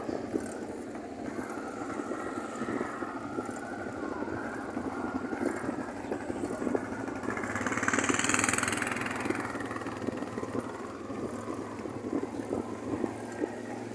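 Motor vehicle engine running at low speed with steady road noise, as from a vehicle pacing a runner. A louder vehicle sound swells and fades about eight seconds in.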